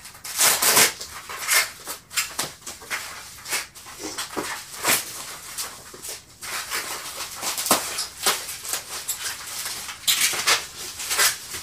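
Plastic bubble wrap rustling, crinkling and squeaking in irregular bursts as it is pulled off a glass bottle.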